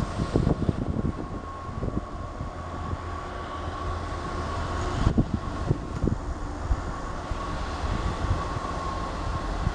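Class 158 diesel multiple unit moving away under power: its diesel engines rumble, with a thin steady whine, and the wheels knock over the track, loudest in a cluster about five seconds in.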